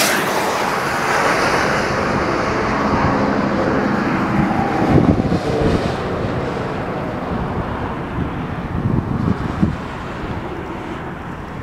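Road and wind noise from a moving vehicle on a highway, with the rush of a large truck hauling a trailer passing close by at the start and fading over the first few seconds. Wind buffets the microphone in low gusts later on.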